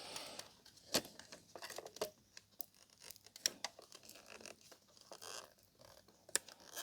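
Flat ribbon cable being peeled off double-sided tape on a plastic housing: faint tearing and crackling with scattered small clicks.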